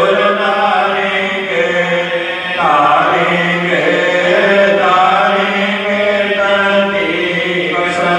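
Devotional chanting of a Hindu evening aarti: voices singing a slow hymn in long held and gliding notes.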